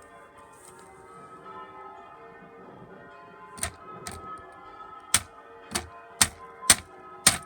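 Faint steady ringing tones of bells, with a run of about seven sharp clacks in the second half that come roughly twice a second near the end.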